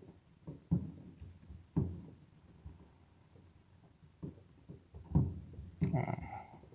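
Distant fireworks going off: a handful of dull booms at uneven intervals, each dying away quickly. A brief murmur of voice comes near the end.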